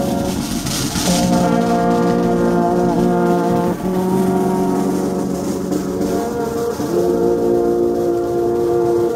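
Military brass band playing a slow funeral march: long held chords from trumpets and horns that change every second or two, with a cymbal crash about a second in.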